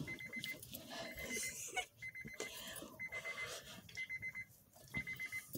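Electronic alarm beeping: half-second bursts of rapid high-pitched pulses, repeating about once a second.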